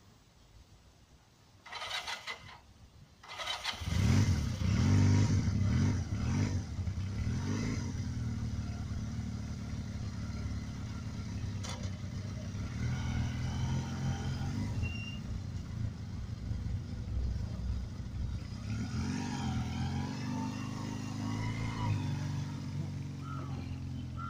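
Restored Honda CD125T Benly's 125 cc parallel-twin four-stroke engine being started: it turns over briefly, catches about three and a half seconds in and is revved loudly. It then runs steadily as the motorcycle pulls away and rides off.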